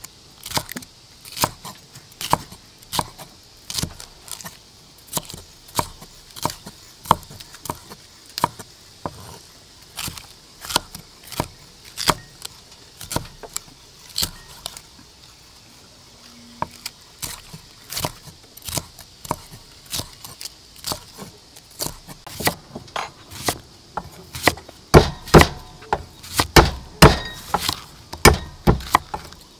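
Cleaver chopping green bell pepper on a thick round wooden chopping block, sharp knocks about one or two a second. Near the end the knife strokes on the board come quicker and louder as an onion is sliced.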